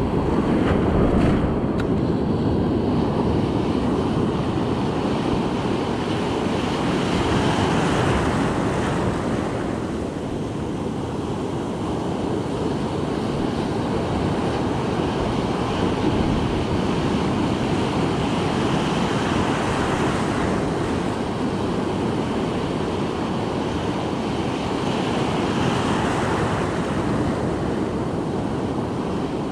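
Ocean surf breaking and washing around the shallows, swelling and easing every several seconds, with wind buffeting the microphone.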